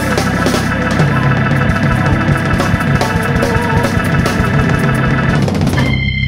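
Hammond organ with a jazz band playing the closing bars of a tune live: busy organ runs over a held low bass note and drums, ending together on a final chord that stops abruptly near the end.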